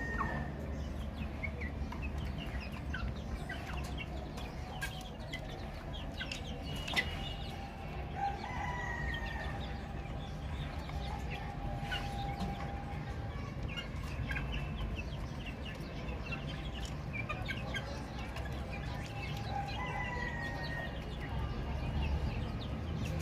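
A group of baby chicks cheeping: many short, high peeps, with now and then a longer falling call. A few sharp taps sound around the middle, over a steady low hum.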